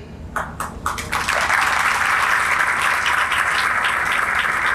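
Audience applause: a few separate claps, then from about a second in, steady clapping by the crowd in the hall.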